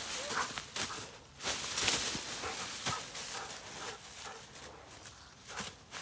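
Fallen leaves rustling and crunching in several short bursts as a German Shepherd pounces and scrabbles through them.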